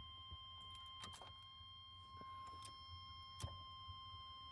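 Near silence with a few faint clicks: no fuel pump buzz can be heard from the 1990 Chevy K1500. The pump is not running, which points to a failed fuel pump.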